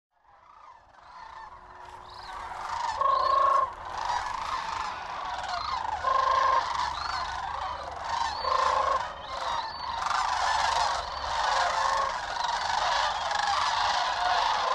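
A flock of sandhill cranes calling, many birds at once, with overlapping calls fading up over the first few seconds and then going on steadily.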